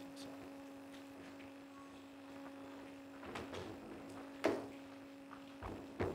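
Steady electrical hum in the audio, with a few brief soft knocks.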